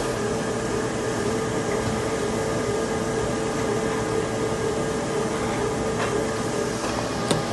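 Shrink-wrap packaging machine running with a steady mechanical hum and a held tone that fades out about six and a half seconds in. A sharp click comes near the end.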